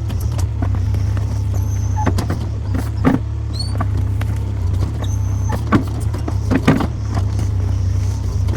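New Holland skid steer's diesel engine running steadily, with sharp knocks and clanks from the machine at work, the loudest about 3 seconds in and two more a few seconds later.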